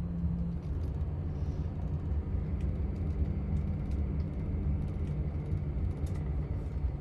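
Vehicle's engine and road noise heard from inside the cab while driving slowly: a steady low rumble with a faint hum.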